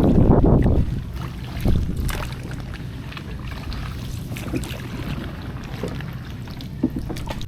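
Wind buffeting the microphone, loudest in the first second and easing after it, over a steady wash of water with scattered light knocks, as from paddling a canoe.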